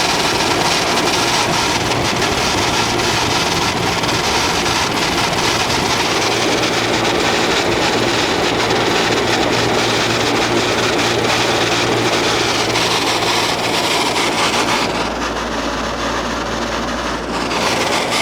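Window air conditioner running, heard from the back at the condenser: a loud, steady rush of the condenser fan over a low hum, with its base pan full of condensate water. About fifteen seconds in, the sound turns duller and lower for a couple of seconds, then returns.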